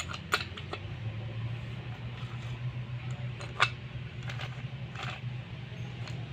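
Metal gearbox parts and tools clinking and knocking during hand assembly, a handful of sharp strikes with the loudest about three and a half seconds in, over a steady low machine hum.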